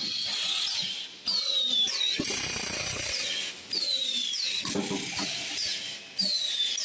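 Chicken nugget forming and coating machine running through its cycle about every two and a half seconds, each stroke bringing a high, falling squeal. A brief burst of hiss comes about two seconds in.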